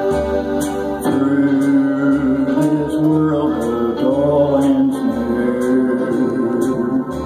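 Electronic keyboard playing an instrumental break of a slow gospel hymn: sustained organ-like chords over a bass line, with a steady programmed backing beat.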